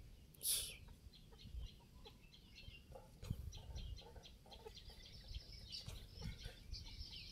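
Faint bird calls: short, repeated clucking and chirping notes over a low rumble. A brief hiss about half a second in is the loudest sound.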